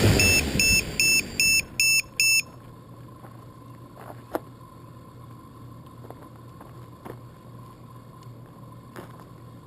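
The Flame Wheel 450 quadcopter's motors wind down to a stop, followed by a run of about six short, evenly spaced high-pitched electronic beeps from the drone's electronics. Afterwards only a faint steady hum and a few light clicks and crunches on gravel.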